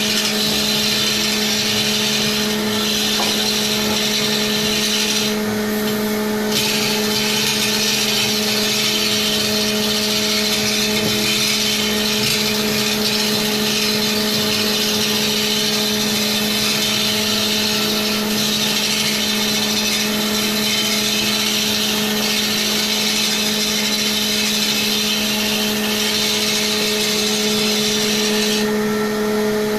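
Electric wood lathe running steadily with a constant motor hum while a hand-held turning tool cuts a large spinning wooden cylinder, giving a continuous scraping hiss. The cutting hiss breaks off for about a second some five seconds in and again near the end, while the motor hum carries on.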